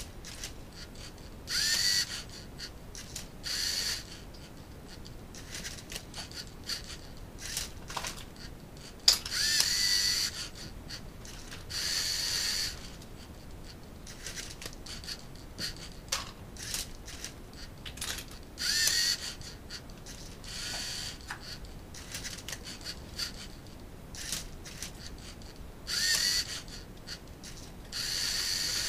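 LEGO Mindstorms NXT servo motors of a Rubik's cube solving robot whirring in short bursts of about a second, mostly in pairs, as the machine turns and tips the cube. Some bursts start with a short rising whine, and small plastic clicks and knocks fall between them.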